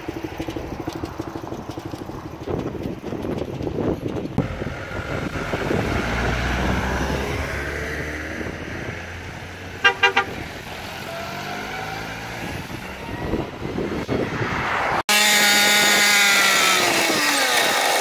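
Mopeds riding along, their engines running steadily, with a horn giving three quick toots about ten seconds in. Near the end the sound cuts abruptly to a louder, higher moped engine revving up and down.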